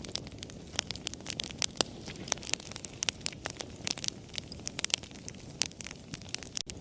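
Fireplace fire crackling: many irregular sharp pops and snaps over a steady low rumble of flame.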